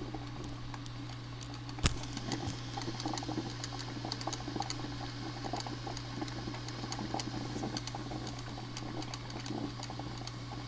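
Black & Decker thermal carafe drip coffee maker brewing: water gurgling and spitting in irregular little crackles as it is heated and pumped through, over a steady low hum. One sharp click about two seconds in.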